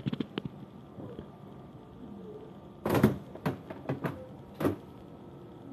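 Handling noises at a refrigerator: a few light clicks, then several short knocks and rustles as items are put back onto the fridge shelves.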